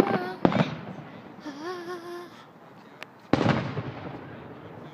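Aerial fireworks bursting: two sharp bangs right at the start about half a second apart, then the loudest bang about three and a half seconds in, its echo fading over the next second or so.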